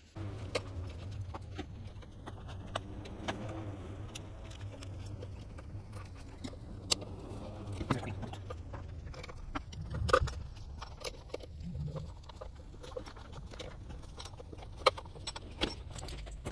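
Scattered light metallic clicks and clinks of hands and tools working on fittings around an engine's intake manifold, over a steady low hum. A few sharper clicks stand out, the loudest about ten and fifteen seconds in.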